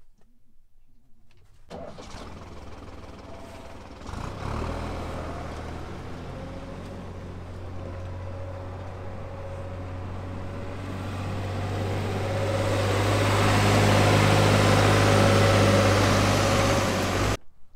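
Farm tractor's diesel engine running steadily, growing louder as it comes close, then cutting off suddenly near the end.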